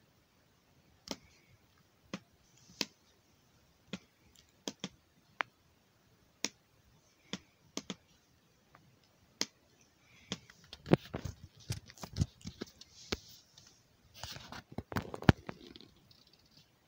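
Sharp, scattered clicks from a laptop being worked, about one every second, then denser runs of clicking and rubbing about ten seconds in and again near the end.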